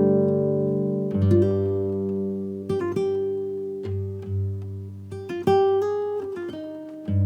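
Background music: an acoustic guitar picking single notes and chords that ring on, a new note coming every second or so.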